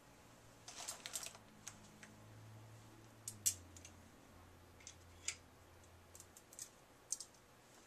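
Faint handling sounds of thin reflector poles and a plastic mount: a short rustle about a second in, then a few sharp, scattered clicks and taps.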